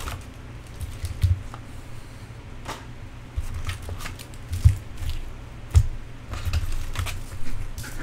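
Foil-wrapped Bowman Chrome trading-card packs being pulled out of their cardboard box and stacked on a desk: crinkling of the foil wrappers with scattered clicks and a few dull thumps, the loudest two in the middle.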